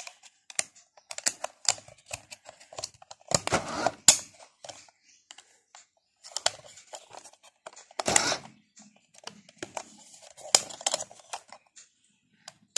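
Plastic RC car remote control being handled with AA batteries in its open battery compartment: irregular plastic clicks and taps, with louder scraping rustles about four and eight seconds in.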